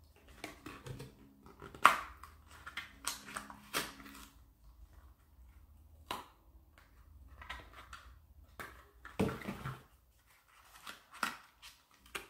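Scissors working through thick cardboard: irregular crunching snips and creaks, heavy going because the cardboard is hard to cut.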